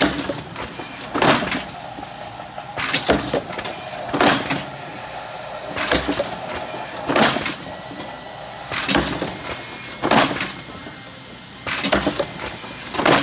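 Klippenstein automatic corrugated tray former cycling. Short sharp mechanical strokes come in pairs about a second apart, and the pair repeats about every three seconds as each blank is folded into a tray.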